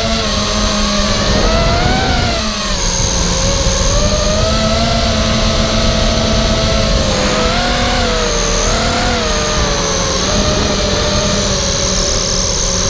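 Charpu 210 FPV racing quadcopter's brushless motors and propellers running, heard from the onboard camera, their pitch rising and falling in swoops as the throttle changes. Under it is a constant low rumble of wind on the microphone.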